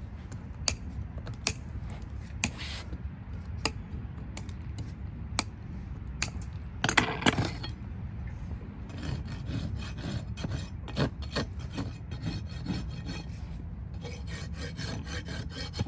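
A farrier's rasp filing a hoof: scattered sharp clicks at first, then from about nine seconds in a fast, even run of rasping strokes.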